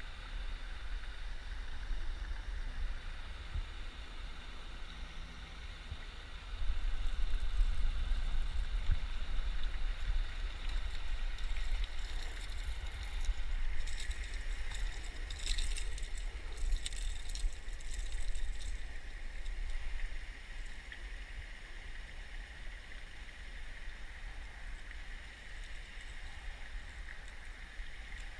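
A steady rush of spillway water under a low rumble of wind on the microphone. A hooked bass splashes and thrashes at the surface as it is swung out of the water, in a flurry of sharp splashes about halfway through.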